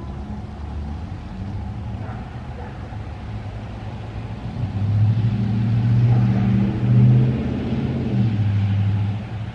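A motor vehicle passing by: a low engine hum and road rumble that grows louder about halfway through, stays loud for a few seconds and eases off near the end.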